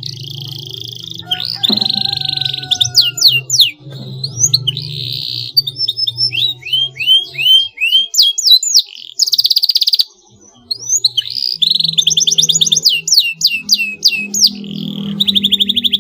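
Domestic canary singing loudly in a fast, ever-changing song of chirps, rising and falling whistles and rapid rolling trills, with a short break about ten seconds in.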